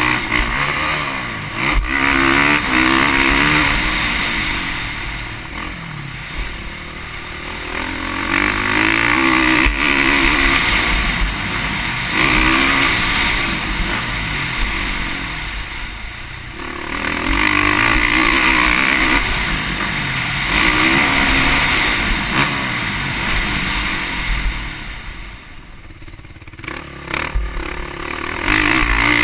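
Motocross bike engine heard from a camera on the bike as it is ridden around a dirt track, revving up in hard surges and dropping off the throttle several times, the deepest lull a little before the end. Rumbling wind noise runs underneath.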